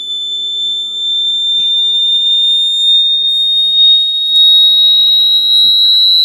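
A loud, continuous high-pitched tone that rises slowly in pitch, unbroken, like an alarm or buzzer.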